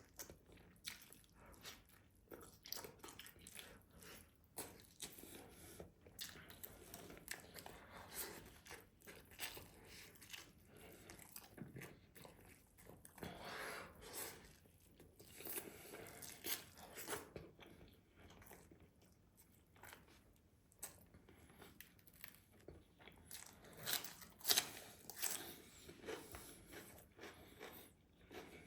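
Close-miked eating of rice and meat: chewing and biting with irregular small mouth clicks and smacks throughout, and one sharper, louder bite late on.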